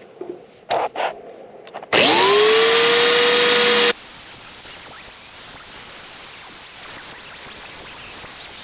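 Small corded belt sander (band file) switched on, its motor whining up to speed about two seconds in. About two seconds later the sound gives way abruptly to a quieter, steady grinding hiss as the belt grinds the mushroomed head of a worn door hinge pin flush.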